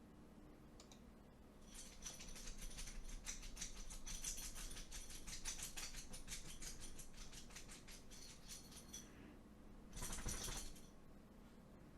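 A fast, dense rattle of small clicks lasting about seven seconds, then a second short, louder burst of clicking near the end.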